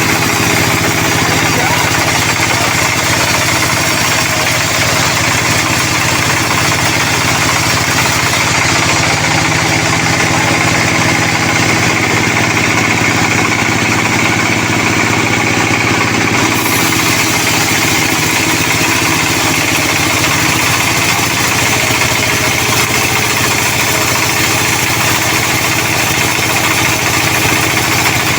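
Sawmill machinery running steadily: a log saw and its engine, an unbroken mechanical drone with a noisy hiss over it.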